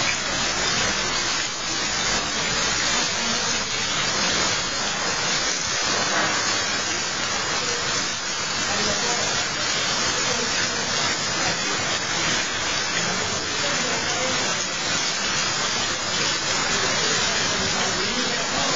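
Heavy rain pouring down on a temple courtyard and streaming off the tiled eaves: a loud, steady, dense hiss.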